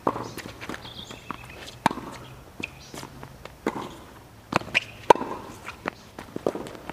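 Tennis ball being hit with racket strings and bouncing on a hard court during a rally: sharp pops every second or two, the loudest about five seconds in.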